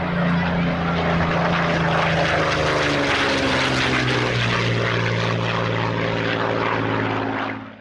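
Propeller aircraft engine droning as the plane flies past. Its note drops in pitch a little over halfway through, and it fades out near the end.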